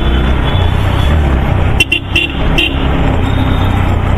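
TVS Apache RTR 160 4V single-cylinder motorcycle riding in city traffic: steady engine and wind rumble on the rider's mic. A few short horn toots come around two seconds in.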